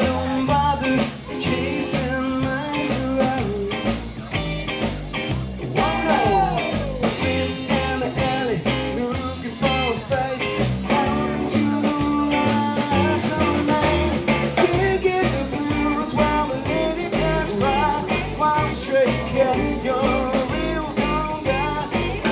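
Live rockabilly band playing an instrumental passage: an electric guitar takes the lead, with bent notes about six seconds in, over a walking upright bass and drums.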